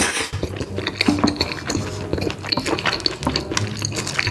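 Close-miked eating sounds: wet chewing, slurping and smacking of creamy alfredo pasta, with many quick mouth clicks.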